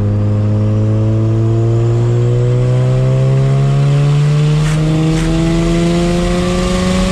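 A Mazda RX-7's big single-turbo rotary engine, heard from inside the cabin, pulling steadily through one gear, its note climbing slowly and evenly.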